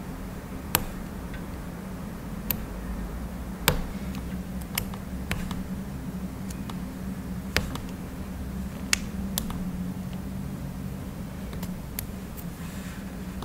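Light, sharp clicks and taps of hard nail tips and tools being handled, about a dozen at irregular intervals, over a steady low hum. A short soft rustle comes near the end.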